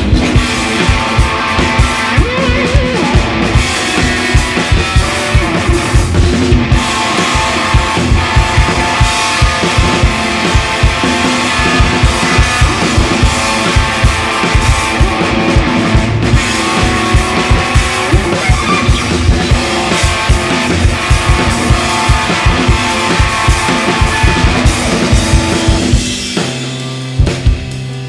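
Live rock band playing with no vocals: drum kit keeping a steady beat under electric guitar. About two seconds before the end the drums stop and a guitar chord rings on.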